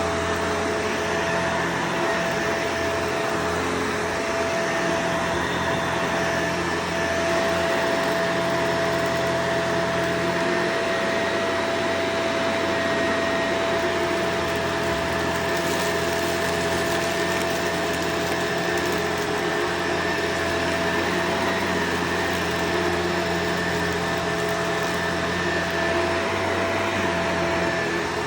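Vacuum cleaner running steadily, a constant whine over its rushing airflow.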